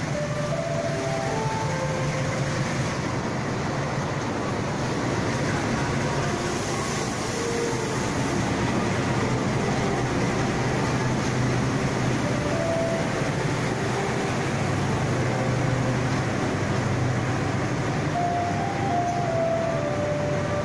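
Diesel locomotive of an arriving passenger train passing along the platform with its engine running, followed by its coaches rolling by, in a steady rumble of engine and wheels. A brief hiss comes about six to eight seconds in.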